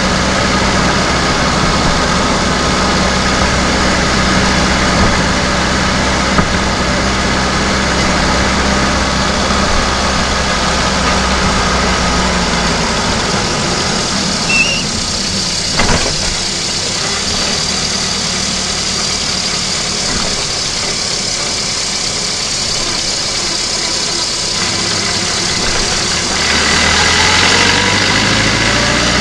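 VAZ-2109 engine running, heard from inside the engine bay while the car drives. The steady low engine note thins out about halfway through, a single sharp click follows a few seconds later, and the engine pitch rises again near the end as it picks up revs.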